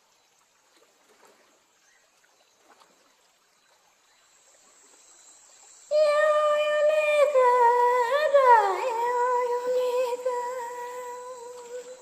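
Near silence for about six seconds. Then a voice hums a wordless icaro-style chant in long held notes, with one dip and glide in pitch partway through, fading toward the end.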